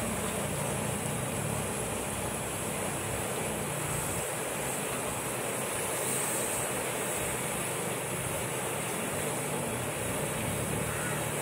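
Batter-coated banana fritters deep-frying in a large wok of hot oil: a steady, unbroken sizzle.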